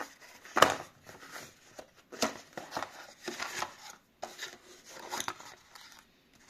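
Small cardboard box handled and opened by hand: irregular scrapes and rustles of cardboard flaps with a few sharper taps, the loudest about half a second in.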